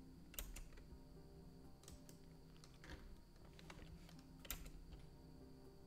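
Faint computer keyboard and mouse clicks, a few scattered taps, some in quick pairs, over a low steady hum.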